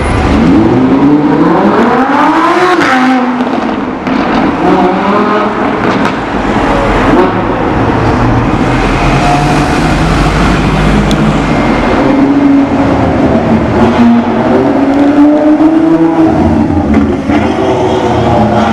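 Lamborghini Huracan LP 610-4's naturally aspirated 5.2-litre V10 accelerating hard, its pitch climbing steeply over the first few seconds. The engine note then rises and falls as the car keeps driving.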